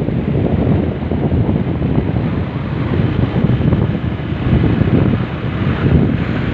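Loud, gusting wind noise buffeting the microphone: a dense low rumble that rises and falls without any clear tone.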